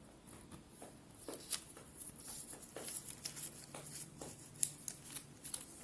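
A strip of paper being folded and handled by hand: faint scattered crinkles and taps, one sharper crackle a little before the end.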